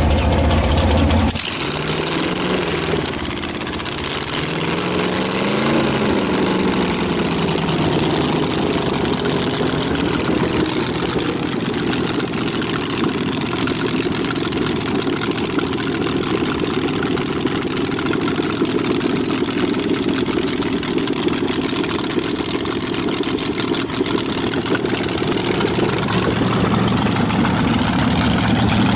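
A slingshot dragster's V8, with open injector stacks and short open exhaust pipes, running loud. In the first few seconds the revs rise and fall a few times, then it settles into a steady run.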